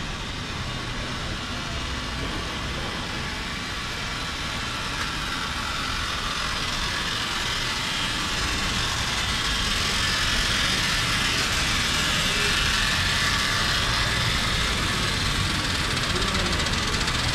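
City street noise dominated by a motor vehicle's engine running close by, with a low rumble and a broad hiss that grow slowly louder over the first ten seconds or so, then hold steady.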